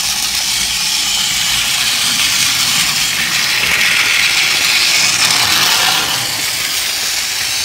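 Small battery-powered motors of Tomy toy vehicles, the Thomas engine and Bulgy the bus, whirring steadily as they run on the plastic track and road. The high whirr grows louder about three seconds in and eases back around six seconds in.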